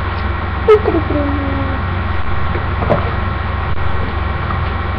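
Steady low electrical hum with a sharp knock a little under a second in, then a brief wordless falling vocal sound from a woman and faint handling noises as she reaches for the next product.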